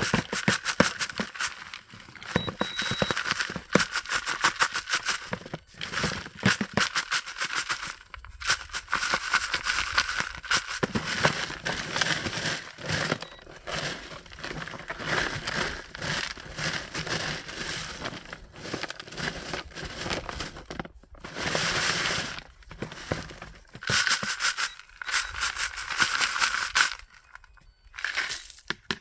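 Gravel and rocks rattling and scraping across a classifier screen as it is shaken, sifting tailings material down into a bucket. The clattering comes in bouts of a few seconds with short pauses between them.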